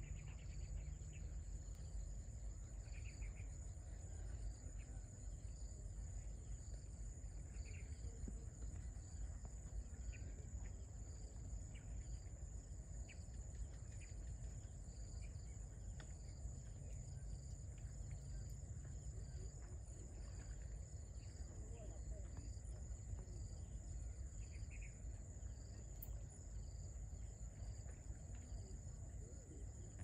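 Insects chirping in a steady high-pitched chorus with a faster pulsing trill beneath it, over a low rumble. A few short chirps stand out now and then, near the start and again a few times later.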